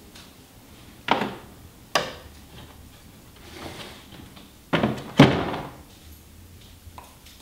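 Objects knocking on a wooden worktable: four sharp knocks about one, two and five seconds in, the loudest just after five seconds, with a soft rustle in between.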